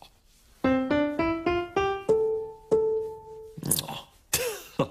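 Grand piano played: a quick rising run of about six notes, then a higher note struck twice and left to ring. Near the end, a short wavering vocal noise from a man.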